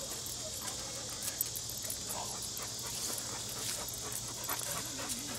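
Steady high-pitched chirring of insects, likely crickets, with faint scattered ticks and a faint wavering whine near the end.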